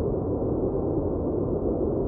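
Steady white-noise track for focus, with its weight in the low end: an even, deep rush without hiss or highs that does not change.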